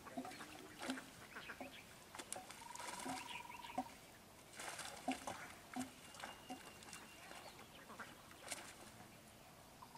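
Scattered short bird calls, with a trilling call about three seconds in, over light splashing as a cast net is drawn out of the water by hand.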